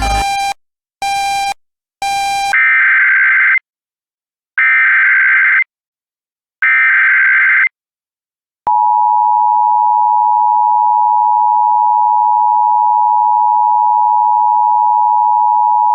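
Emergency Alert System broadcast tones. After two short beeps come three one-second bursts of buzzing SAME header data, with pauses between them. Then the two-tone EAS attention signal (853 and 960 Hz together) sounds steadily for about seven seconds.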